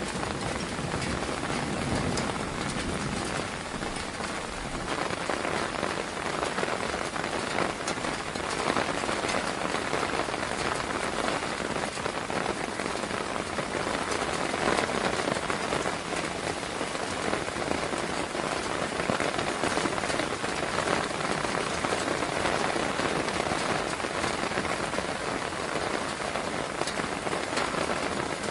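Steady rain falling, an even wash of many small drops that neither builds nor eases.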